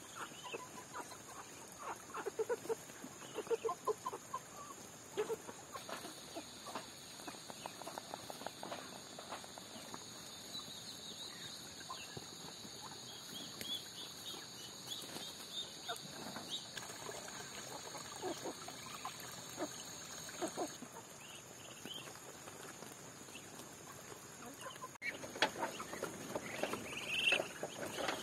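Flock of chickens clucking in short scattered calls as they feed, louder near the end.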